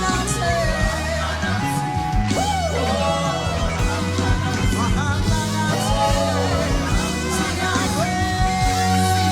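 Live gospel worship band playing with bass, drums and guitar while a singer holds long vocal notes, one sustained from about eight seconds in.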